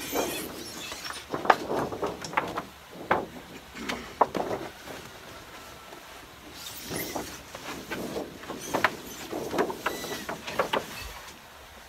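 A large flexible seedling heat mat being lifted, flexed and flipped over by hand: irregular crinkling and flapping with scattered sharp clicks, easing off for a moment near the middle.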